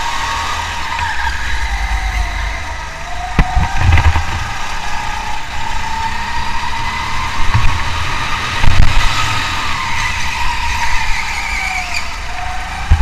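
Car engine running hard, its pitch sinking and climbing back twice as the car slows and speeds up again, with several heavy low thumps, the loudest about two-thirds of the way through.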